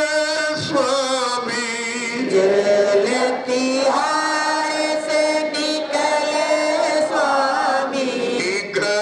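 Devotional chanting: one voice sings long held notes, sliding smoothly from one pitch to the next.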